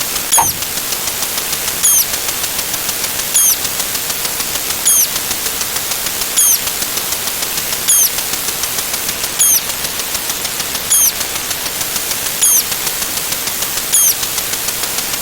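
Synthetic sound effects: a steady hiss with fast fine ticking, and a short high chirp that repeats about every second and a half. A brief sliding mid-pitched tone sounds about half a second in.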